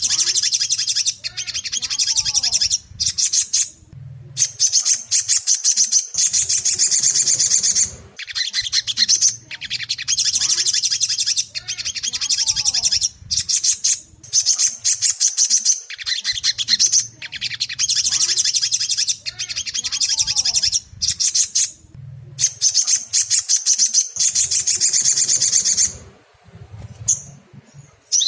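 Ruby-cheeked sunbird (sogon) song: rapid, high-pitched twittering chirps in runs of a second or more with short breaks between, the same sequence repeating about every eight seconds as a looped lure recording. A faint low hum runs underneath.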